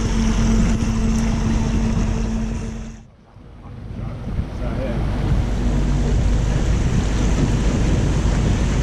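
A boat's outboard motor running steadily under way, with the rush of wind and water. About three seconds in the sound dips out briefly, then comes back as a steady rush of wind and water with the motor hum fainter.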